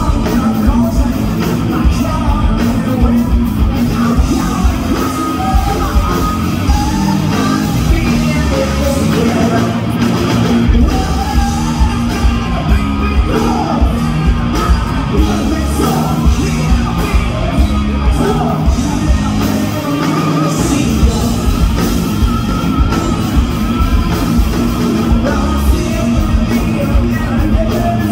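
Hard rock band playing live through a PA: electric guitars, bass and drums with a steady beat, and a lead vocal sung and yelled over it.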